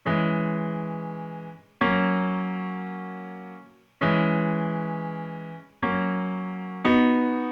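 Simple block chords played over MIDI on the sampled piano of Toontrack's EZkeys 2 virtual instrument: five chords, each struck and held while it dies away, the first three about two seconds apart and the last two closer together.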